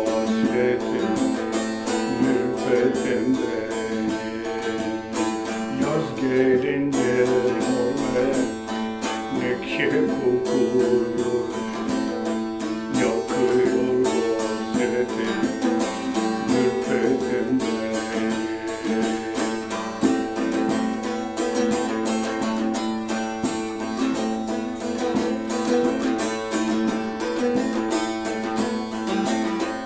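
Bağlama (long-necked Turkish saz) strummed rapidly with a plectrum, playing a folk melody over a steady drone.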